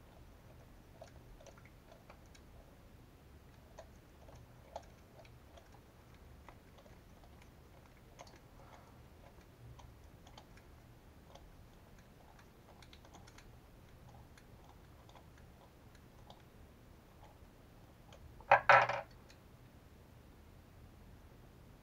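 Small plastic and metal RC shock parts clicking and tapping as they are handled and fitted together during a shock rebuild. Near the end comes one much louder, brief clatter of something set down on the bench.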